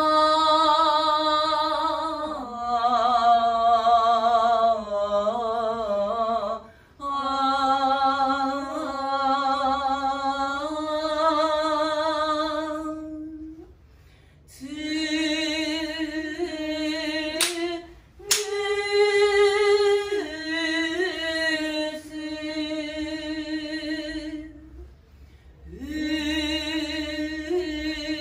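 A woman singing a shirabyoshi song unaccompanied, in long drawn-out notes that waver and step slowly in pitch, with short breaths between phrases. Two sharp clicks come about two-thirds of the way through.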